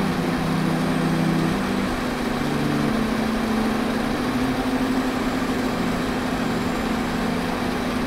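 Steady machine-like drone over a constant hiss, with low sustained tones that shift lower about two seconds in.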